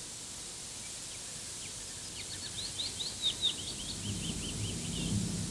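A small songbird singing a quick run of high chirps and short falling notes, over a steady tape hiss.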